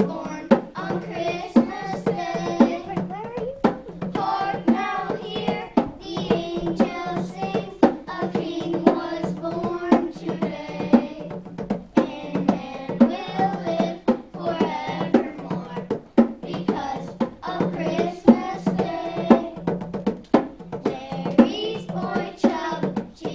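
A small group of children singing together into microphones over musical accompaniment with a steady drum beat.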